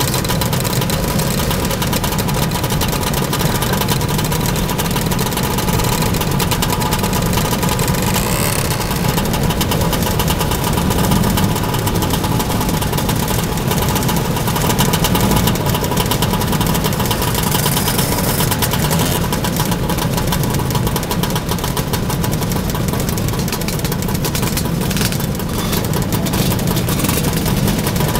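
Many motor scooter engines idling together: a loud, steady mass of engine noise with no break.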